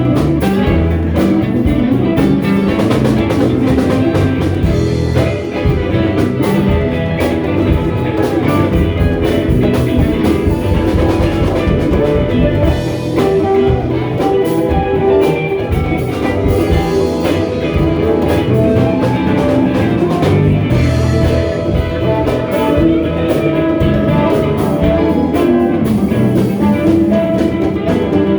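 A band playing an instrumental passage with a steady beat, no singing.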